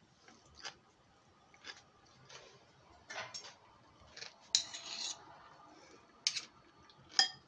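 Metal spoon scraping and clinking against a steel ring mould and plate as a soft salad mixture is spooned in and spread: scattered short scrapes and taps, the sharpest clink near the end.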